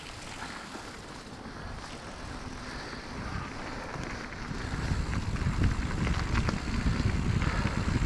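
Wind buffeting the microphone of a bike-mounted action camera, over the rolling rumble of mountain bike tyres on wet gravel; it grows louder from about halfway through.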